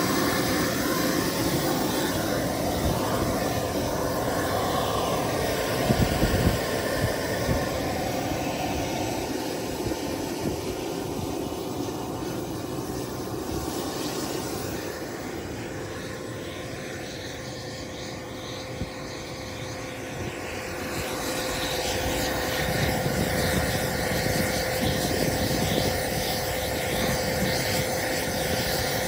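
Model aircraft engine running steadily, with wind buffeting the microphone.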